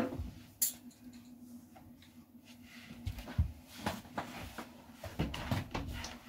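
A person shifting about on a wooden floor: scattered knocks, bumps and rustles, with a cluster of them about five seconds in, over a steady low hum.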